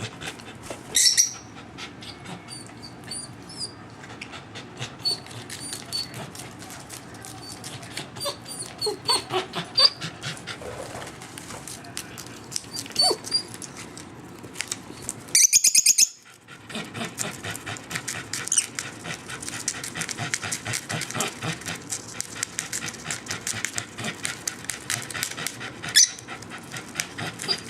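Bichon Frisé's quick, rapid panting, with short high lovebird chirps now and then and one loud squawk about halfway through.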